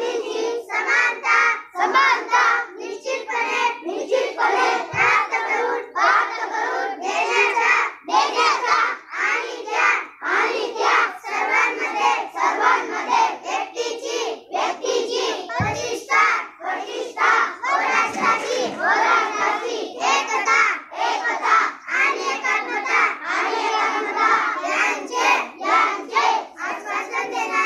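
A group of children chanting together in unison, phrase after phrase, in a loud, rhythmic group recitation.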